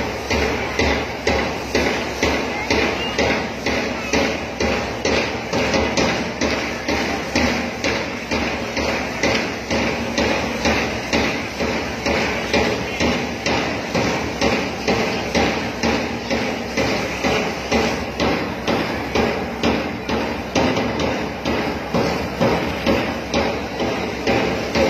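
A steady drum beat, about two strikes a second, keeping time for a children's PT drill.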